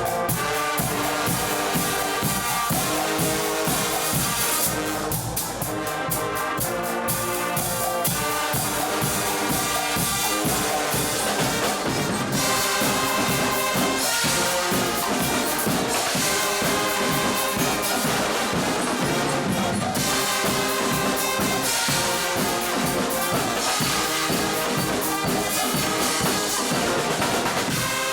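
Guggenmusik band playing loudly: trumpets and trombones carrying the tune over a steady drum beat.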